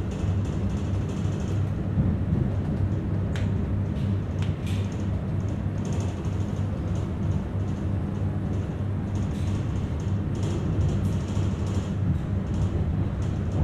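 Rodalies electric commuter train running, a steady low rumble with a few light clicks and rattles about three to five seconds in.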